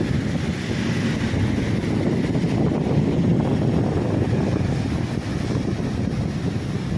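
Ocean waves breaking and washing on the shore, with wind buffeting the microphone, a steady low rush that swells slightly midway.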